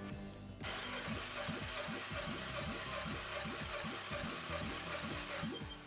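Nissan HR16DE 1.6-litre four-cylinder engine being spun over for a compression test, a steady whir with fast, even pulses from the compression strokes, starting about half a second in and stopping near the end; the first cylinder builds up 10.5 kg/cm².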